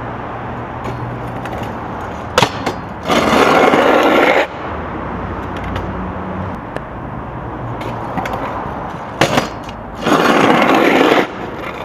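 Freestyle scooter's wheels rolling on concrete, with two loud scrapes on the concrete of about a second each, one a few seconds in and one near the end, and a few sharp clacks before each.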